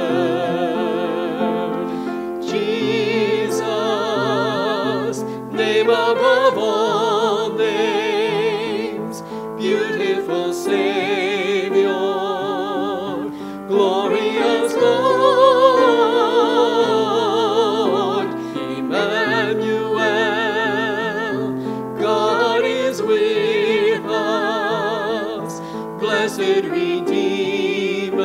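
Classical-style singing with a wide vibrato over instrumental accompaniment with steady low notes.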